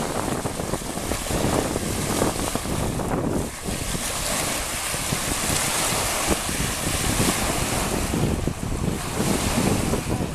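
Small waves breaking and washing onto a shell-and-pebble beach, with wind buffeting the microphone in a steady low rumble.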